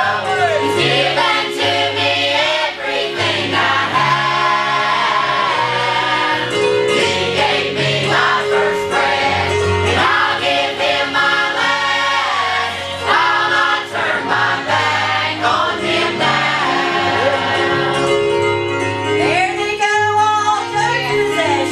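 Mixed church choir of men and women singing a gospel song together.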